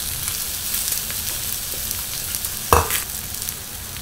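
Chicken wings and sausages sizzling on a ridged grill plate over a portable gas stove, a steady crackling hiss. One brief louder sound cuts in about three quarters of the way through.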